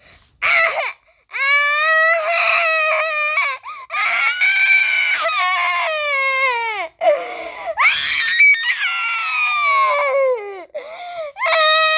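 Baby crying hard: a run of long wails, most falling in pitch at the end, broken by short gaps for breath.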